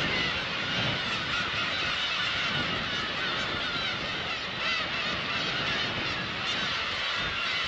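A colony of black-tailed gulls calling: a dense, continuous chorus of many overlapping cries.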